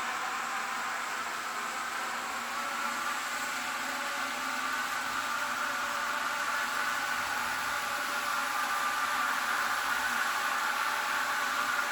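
Sound decoder in an N scale Rapido Amtrak Turboliner model playing its electric third-rail running sound through the model's small speaker: a steady whirring hiss with a faint hum in it, growing a little louder over the second half.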